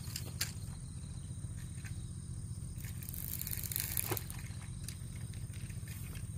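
Steady low outdoor rumble with a thin, steady high tone over it, and a brief splashy rush about three to four seconds in that ends in a sharp click: a fish breaking the surface of the canal.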